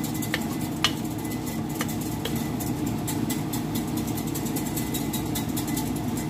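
A wooden spoon stirring raw rice, diced onion and carrot in a stainless steel pot, giving short scrapes and clicks against the pot, over a steady low hum.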